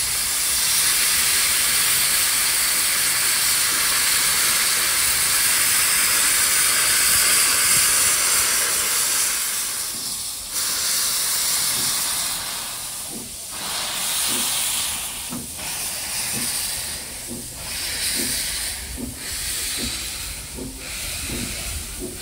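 Baldwin-built steam locomotive starting away with its cylinder cocks open, blowing a loud steady hiss of steam. About halfway through the hiss starts to pulse with the exhaust beats, roughly one every two seconds and getting closer together, over light regular clicking as the train rolls past.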